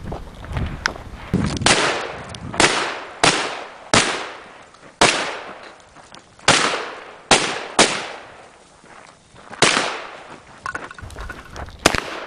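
Shotgun firing a string of about nine shots at uneven intervals, each shot followed by a short echoing decay. A sharp click near the end.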